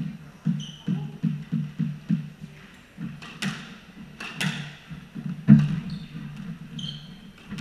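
A squash rally on a hardwood court. A run of low thumps comes about three a second in the first two seconds, like the ball being bounced before the serve. Then there are two sharp racket cracks on the ball, a heavy thud about five and a half seconds in, and brief rubber-sole squeaks on the floor.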